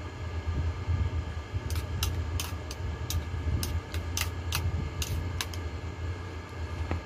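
Steady low hum of a room air conditioner, with a run of about ten short, crisp mouth clicks and smacks from a person chewing a spoonful of soft noodles, between about two and five and a half seconds in.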